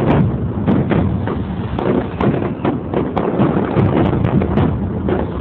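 Aerial fireworks shells bursting in a rapid, overlapping barrage: many loud bangs a fraction of a second apart, with no pause between them.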